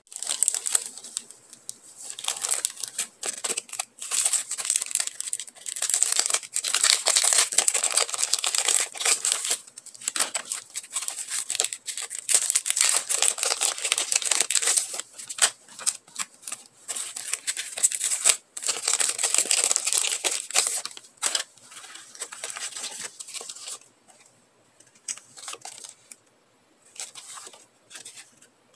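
Clear plastic packaging crinkling and tearing as hands open packs of sticker sheets, in dense crackly bursts. It grows sparser and quieter for the last few seconds.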